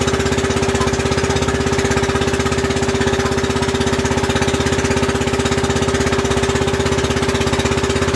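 Outrigger boat's engine running steadily under way, loud with a rapid, even pulsing beat and a steady hum.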